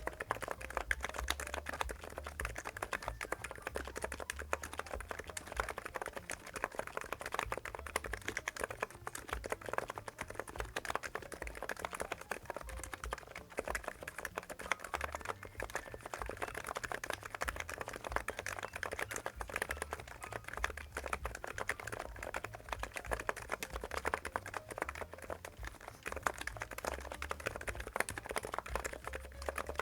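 Continuous fast typing on a NIZ X99 electrostatic capacitive (EC) keyboard with PBT keycaps: a dense, unbroken run of soft keystroke clicks.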